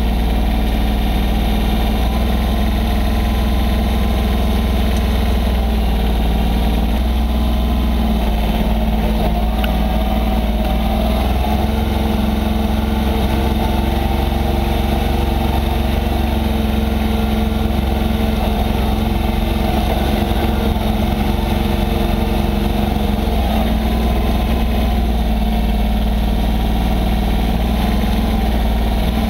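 Massey Ferguson 1020 compact tractor's diesel engine running steadily, heard close up from the tractor, with small shifts in pitch as it drives and works the front loader through snow.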